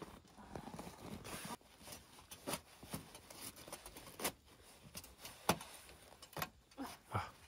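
A scattered series of faint, short clicks and knocks at an irregular pace, with light rustling between them, as small objects are handled.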